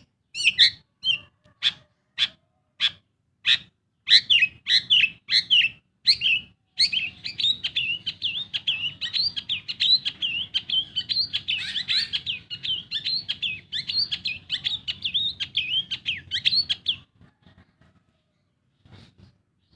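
Long-tailed shrike (pentet) singing: a run of separate sharp calls about one to two a second, then from about seven seconds in a fast, continuous warbling chatter that stops shortly before the end.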